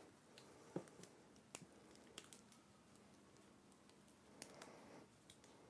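Near silence with a few faint clicks and light taps from handling a charger's cable and plug.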